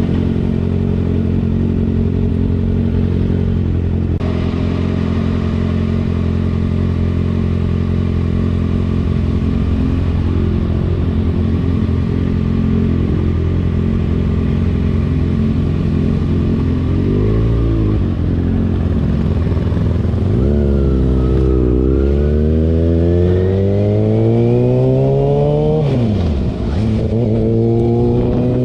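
Kawasaki ZX-6R 636's inline-four engine running at steady cruising revs. Past the halfway point it blips once, then accelerates with the pitch climbing, drops sharply at a gear change, and climbs again.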